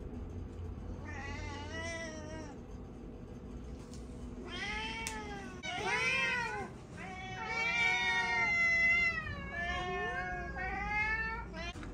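House cats meowing, about six calls from the group one after another, including one long drawn-out meow about two-thirds of the way through: cats begging to be fed at breakfast time.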